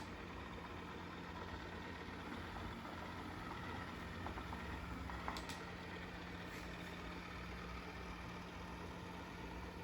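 LG Roboking Turbo R46RIM robot vacuum running with a steady hum as it drives back in search of its charging dock, with a couple of faint clicks about five seconds in.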